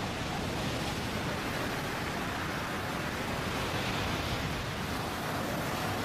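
Ocean surf breaking and washing over the shore: a steady, continuous rush of churning water.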